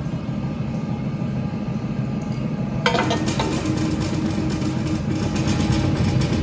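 Workshop machinery running with a steady low hum, and one sharp metal clank about three seconds in as a sheet-steel door-frame profile is set into the die of a notching press; a higher steady hum carries on after the clank.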